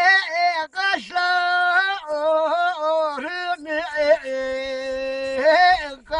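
An elderly man singing unaccompanied in a high voice, holding long notes with wavering ornaments between them.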